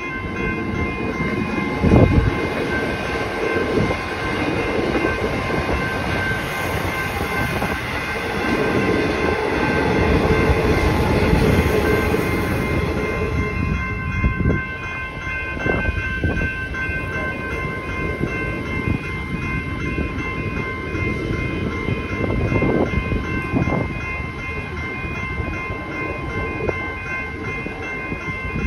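Level crossing bells ringing steadily over the rumble of Melbourne suburban electric trains on the crossing, with scattered wheel knocks. A Comeng train passes first, loudest in the middle; near the end a Siemens train rolls through.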